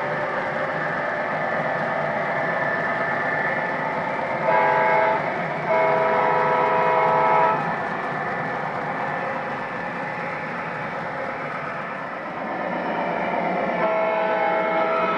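O-gauge model freight cars rolling past on three-rail track, a steady rumble of wheels on rail. The model diesel locomotive's electronic horn sounds a short blast about four and a half seconds in, then a longer one, and starts again near the end.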